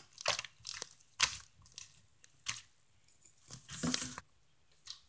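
Sticky gold foam slime with foam beads being pressed, squeezed and stretched by hand: irregular wet crackles and sticky squelches, with a longer run of crackling about three and a half seconds in. The stickiness, a sign that the slime needs more activator, can be heard as it pulls apart.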